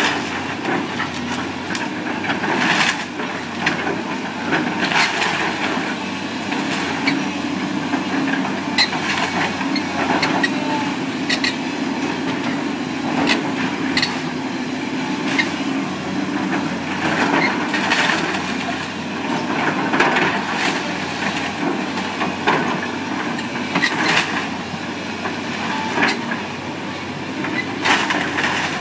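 Wooden house being torn down: a heavy machine's engine running steadily under repeated cracks and crashes of breaking wood.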